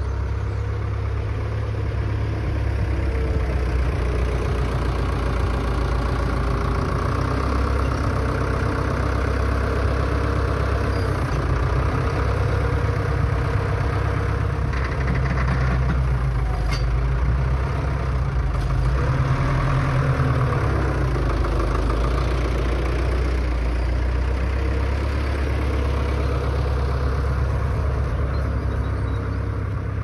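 A farm machine's diesel engine running steadily throughout, its pitch wavering up and down a little and getting slightly louder around the middle.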